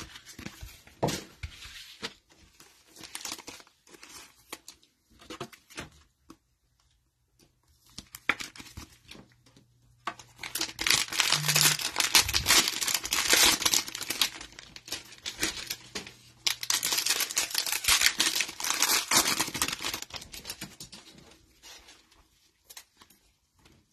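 A cellophane-wrapped trading-card cello pack being torn open and crinkled by hand. Light scattered rustles and clicks come first, then about halfway through comes about ten seconds of loud crinkling and tearing of the wrapper, dying down to a few rustles near the end.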